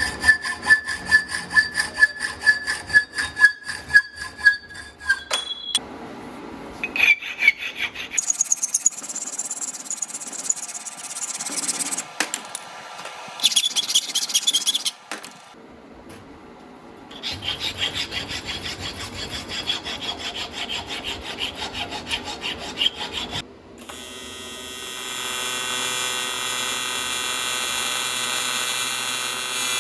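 Regular scraping strokes of a hand tool on aluminium for the first few seconds, then stretches of steady buzzing as the aluminium reinforcement plate is welded on.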